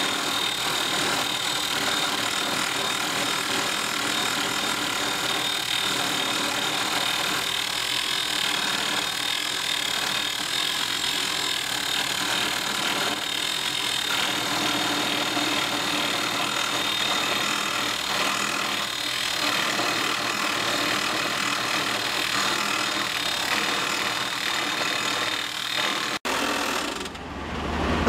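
Comacchio MC 12 drill rig drilling a self-drilling hollow bar anchor, a steady mechanical drilling noise. Near the end it breaks off and a lower engine sound takes over.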